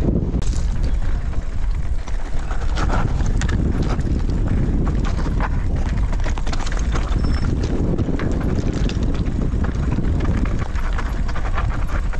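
Mountain bike rolling over loose slate scree, its tyres crunching and clattering on the stones in quick irregular clicks, with wind rumbling on the helmet-camera microphone.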